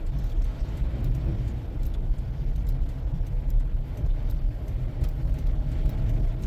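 Car driving through a snowstorm, heard from inside the cabin: a steady low rumble of road and engine noise that rises and falls in loudness.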